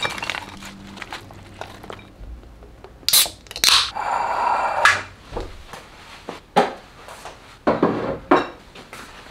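Kitchen handling sounds: a plastic bag of salad greens rustling as it is emptied into a ceramic bowl, then scattered sharp clatters, knocks and clinks of dishes and utensils on a stone counter.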